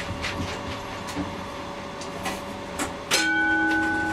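Comeng A-class tram running, with a steady hum and a few sharp clicks; about three seconds in, a single bell-like ding rings out and holds on, fading slowly.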